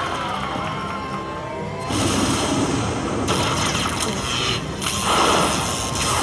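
Lightning Link slot machine tallying its Hold & Spin bonus: an electric zap sounds as each pearl's value is added to the win meter, three of them about a second or two apart, over the machine's sliding, chiming tones.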